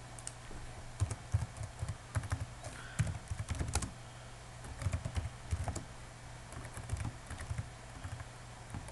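Computer keyboard typing in short runs of keystrokes with pauses between them, over a steady low hum.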